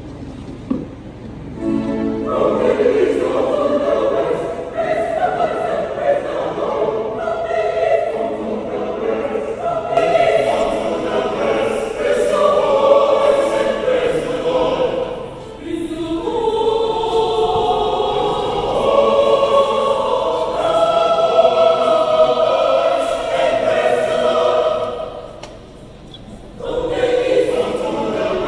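Choir singing, starting about two seconds in, with a short break near the end before the voices come back in.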